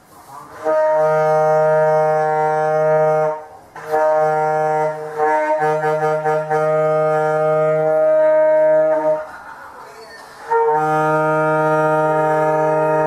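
Alto saxophone played by a beginner. He holds four long, low notes on the same pitch, each lasting a few seconds, with short gaps between them. The notes have a low, blaring tone like a ship's horn.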